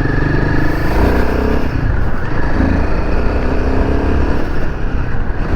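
Royal Enfield Himalayan 450's single-cylinder engine running under throttle while the bike is ridden, with the engine note shifting a couple of times and a steady rush of wind and road noise.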